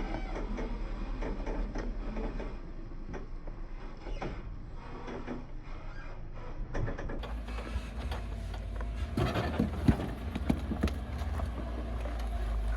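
Off-road Jeep's engine running low as it crawls over rock, with several sharp knocks and crunches of tyres and underbody on stone, the loudest about ten seconds in.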